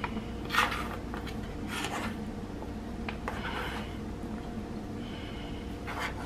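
A spoon tossing a chopped salad in a large bowl: four brief, soft scraping rustles at uneven intervals, with a couple of small clicks, over a steady low hum.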